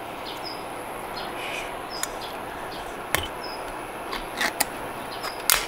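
Rural outdoor ambience: short high chirps repeating about every second over a steady background hiss, with a few sharp clicks, the loudest about three seconds in and near the end.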